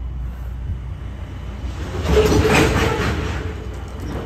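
Freight train hopper cars rolling past, their wheels giving a steady low rumble on the rails, which swells louder for about a second near the middle.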